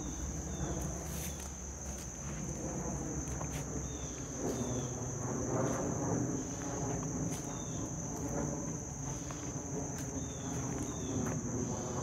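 Steady high-pitched insect drone, with short paired chirps every couple of seconds, over footsteps crunching and rustling through dry leaf litter and brush.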